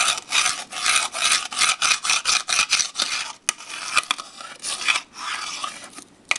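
Fingerboard grinding back and forth along the edge of a Black River Ramps box: a fast run of scrapes, about four a second, easing into softer rubbing about three and a half seconds in, with a few sharp clicks as the board knocks against the box.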